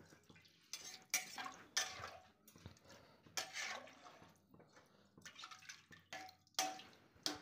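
Metal ladle stirring rice and water in a pressure cooker: liquid sloshing in repeated strokes, with scrapes and light clinks of the ladle against the pot.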